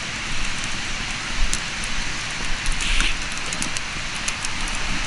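Wood campfire crackling, with sharp pops scattered through a steady hiss and a low rumble of wind on the microphone.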